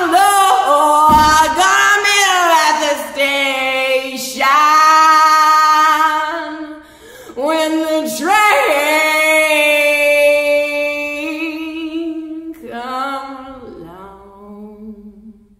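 Female voice singing long, drawn-out wordless notes with pitch scoops and slides, fading out near the end. A single foot-drum thump about a second in.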